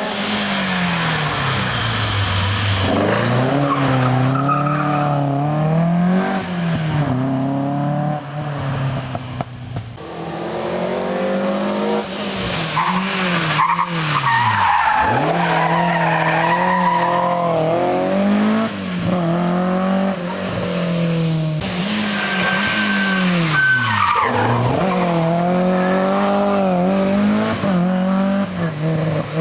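Rally car engine driven hard, its pitch climbing and falling again and again through gear changes, lifts and braking, with one deep drop about halfway. A brief high tyre squeal joins it about two-thirds of the way in.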